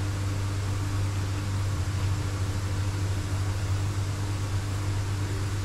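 Steady low machine hum with an even hiss over it.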